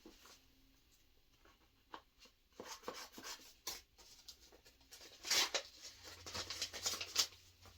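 Packaging being handled and opened, rustling and crinkling. It is quiet at first, then comes a run of short scratchy rustles, loudest about two-thirds of the way through.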